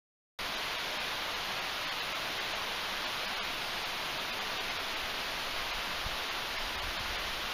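After a brief dead silence at the start, the steady, even hiss of a shallow river running over its stony bed.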